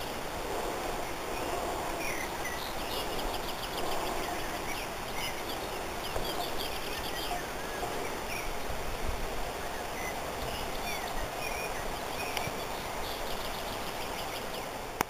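Outdoor ambience: small birds chirping and trilling over a steady rush of wind, with wind buffeting the microphone. A sharp click near the end.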